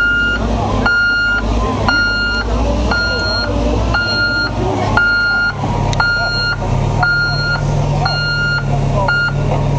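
Vehicle reversing alarm beeping about once a second, each beep short and high-pitched, over a running engine whose low hum rises in pitch about seven seconds in.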